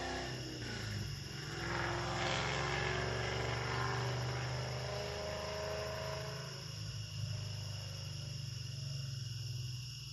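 Ford Coyote Gen 3 5.0 L V8 engine. Its revs fall back and it blips briefly about two seconds in, then holds a steady fast idle that settles to a lower idle about two-thirds of the way through.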